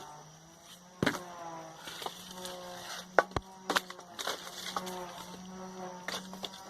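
An insect buzzing steadily, with sharp knocks scattered through as firewood is stacked for a bonfire, and short pitched sounds in the background.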